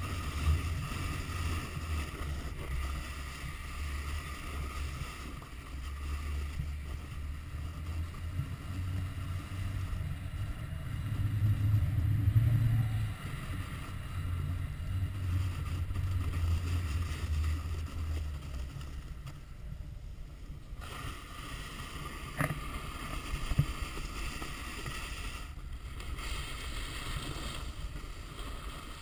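Wind buffeting the microphone of an action camera on a snowboarder riding downhill, over a steady hiss of the board sliding over snow. The buffeting is strongest a little before halfway and dies away about two-thirds of the way through, leaving the fainter hiss, with two short knocks soon after.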